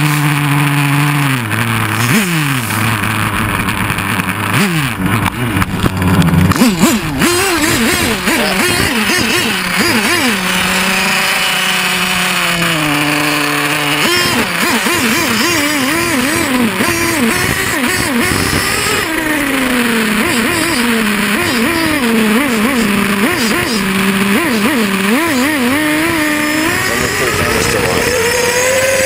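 Motor of a radio-controlled snowmobile, heard from a camera mounted on it, its pitch rising and falling with the throttle as it drives over snow. A cluster of knocks comes around six or seven seconds in.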